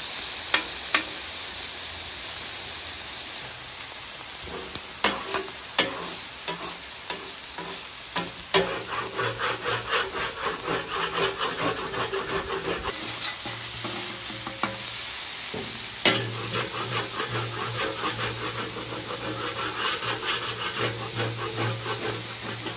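Chicken breasts sizzling on a Blackstone flat-top griddle, with a metal spatula clacking sharply against the steel plate a few times as the pieces are flipped. From about nine seconds in, a spatula scrapes back and forth across the griddle in quick repeated strokes over the sizzle.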